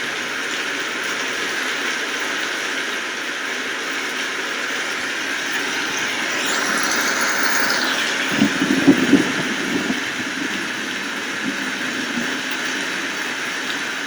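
Steady rain falling, an even hiss throughout. Midway a brief sweeping swell passes through the hiss, followed by a few low thuds.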